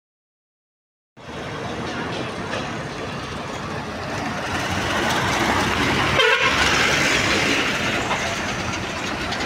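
After about a second of silence, heavy diesel tipper trucks and a tractor-trailer drive past on a rough gravel road. Their engines and tyres make a steady noise that grows louder toward the middle, and a horn toots briefly about six seconds in.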